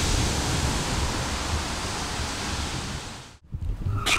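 A steady rushing hiss with a low rumble under it, easing off slightly and then cutting off suddenly about three and a half seconds in.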